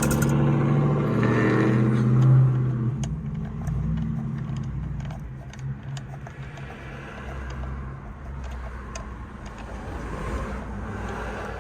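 A motor vehicle's engine drives by, swelling to a peak about two seconds in and fading away over the next second, followed by a low steady rumble with scattered faint clicks.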